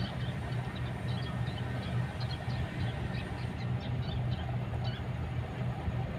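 Kobelco excavator's diesel engine running steadily with a low rumble. Scattered short high chirps sound over it throughout.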